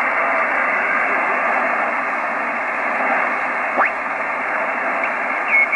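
Yaesu FR-101S shortwave receiver putting out a steady hiss of band noise between signals. As the tuning dial is turned, a whistle sweeps quickly past about two-thirds through, and another falls in pitch near the end.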